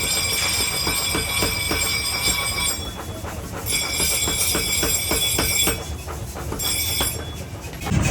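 A high-pitched metallic squeal, typical of steel being ground, that cuts out twice and comes back, over a fast patter of ticks.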